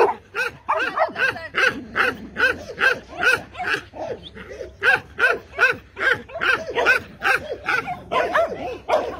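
A dog barking over and over during play, short yelping barks about three a second, with a brief pause about four seconds in.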